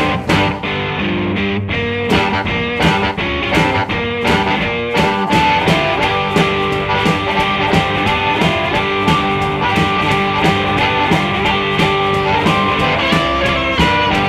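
Background rockabilly music: guitar over a steady beat.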